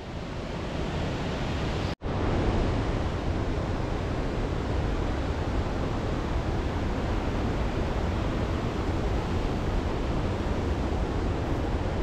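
Waterfall: a steady rush of falling water that swells up over the first two seconds, with a split-second break about two seconds in.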